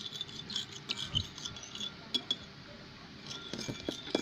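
A utensil clinking and tapping against a bowl in scattered light clicks while stirring glue into water, the mixture not yet blended.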